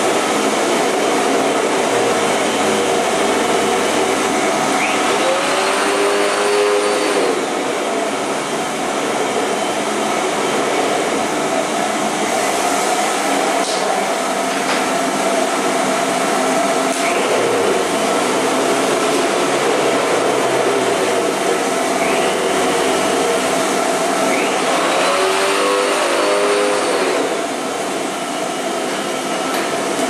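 Vacuum cleaner running steadily with a continuous hum and hiss. Twice its pitch briefly rises and falls.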